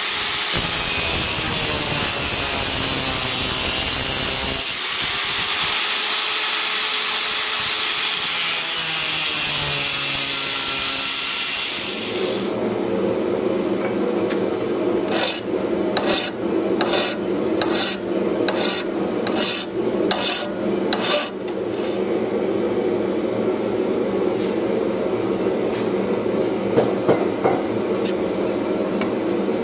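Power grinder cutting into a steel knife blank, a high whine that rises and falls as the blade is worked, cutting off about twelve seconds in. A lower, steadier working noise follows, with a run of regular strokes about three every two seconds.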